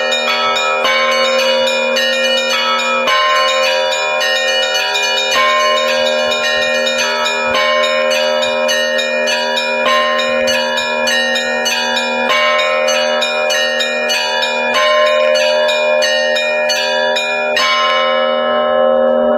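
Russian church bell ringing (zvon): small bells struck in a quick, busy pattern over the steady hum of larger bells. Near the end the strikes stop and the bells ring on, fading.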